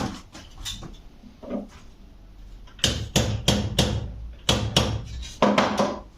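A small hammer striking a rivet in small metal parts to set it. A few light taps come first, then about three seconds in a quick run of about eight sharp metallic blows, each with a short ring.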